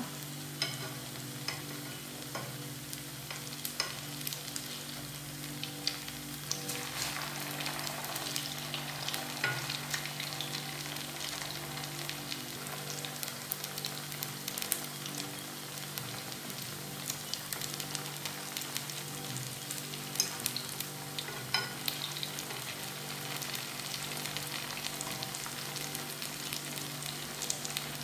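Cauliflower fritters frying in a pan of hot oil: a steady sizzle with scattered crackling pops, over a low steady hum.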